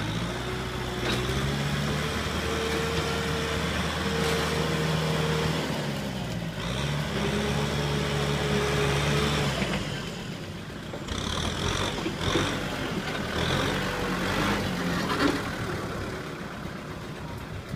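Kubota M6040SU tractor's diesel engine running hard under load while pulling a loaded trailer out of mud, its pitch shifting about six seconds in. After about ten seconds it gets quieter and more uneven, with a couple of sharp knocks.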